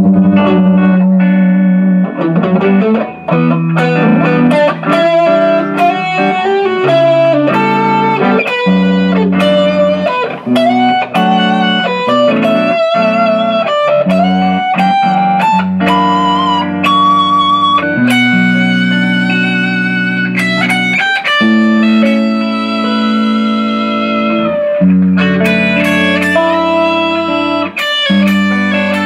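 Electric guitar fitted with a Floyd Rose FRX tremolo playing a single-note lead with wavering vibrato on held notes, over a sustained looped chord backing. It is a test play of the newly installed FRX.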